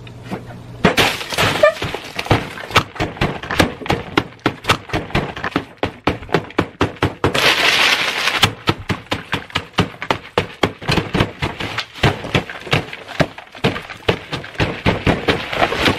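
Rapid, continuous crashing, crunching and slamming as fast food and tortilla chips are smashed and flung across a table by hand, the blows coming several a second, with a harsher, hissier stretch a little before halfway.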